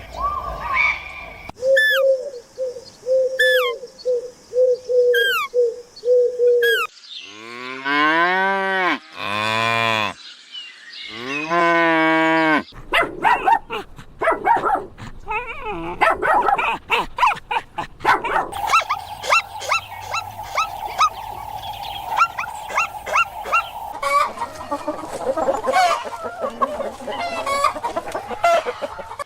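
A run of different farm animal calls spliced one after another. Near the middle come several long, low cow moos.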